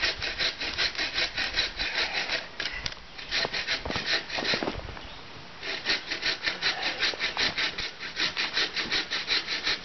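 A blade scraping quickly back and forth along a green wooden stick, about six strokes a second, whittling a hot dog roasting stick. The scraping stops for a couple of seconds in the middle, with a few soft knocks, then starts again.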